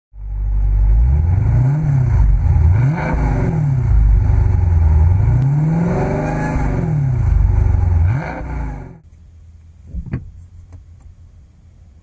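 6.4-litre 392 Hemi V8 being revved, its pitch rising and falling several times, then cutting off suddenly about nine seconds in. A single faint knock follows about a second later.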